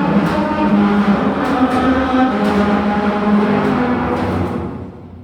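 Background music with sustained chords, fading out near the end over a steady low hum.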